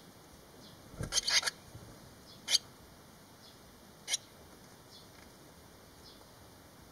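Barn swallow nestlings in the nest giving faint, high, short peeps that fall in pitch, repeating about twice a second. A cluster of loud, sharp, scratchy sounds comes about a second in, and two single ones follow later.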